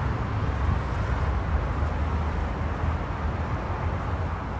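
Steady city road traffic: a continuous low rumble of passing and idling cars.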